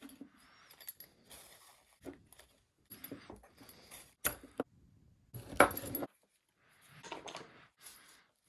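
Hand-forged steel belt buckles clinking and rattling lightly as the leather belts are handled, in short scattered bursts, the loudest a little past halfway.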